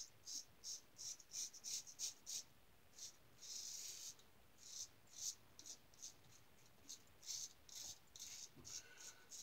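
GE Jones Shake Sharp MK2 safety razor with double-stacked Wizamet blades scraping through lathered beard stubble: short rasping strokes, about three a second, with one longer stroke between three and four seconds in.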